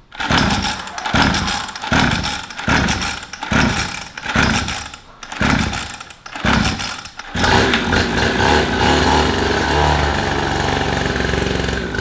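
Mini moto's small chainsaw-type engine being pull-started: several recoil-starter pulls about a second apart, each turning it over briefly, until it catches about seven seconds in and runs steadily. It is hard to start, which the owner puts down to flooding from a cracked fuel hose.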